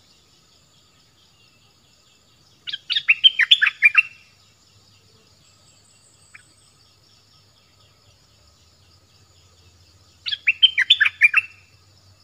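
A bulbul (the นกดอกแตง of southern Thailand) singing, used as a decoy call: two short phrases of quick notes, one about three seconds in and one near the end, over a faint steady insect hum.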